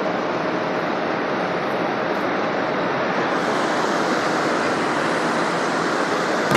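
Steady rushing wind and road noise from a car on the move, turning a little brighter about three seconds in.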